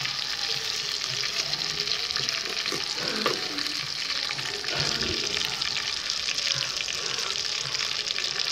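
Battered chicken 65 pieces deep-frying in hot oil in a kadai: a steady sizzle, full of fine crackling.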